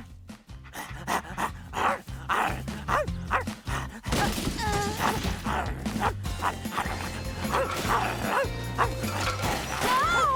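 Upbeat music with a steady beat and bass line, with a cartoon wolf pup's yips and barks over it.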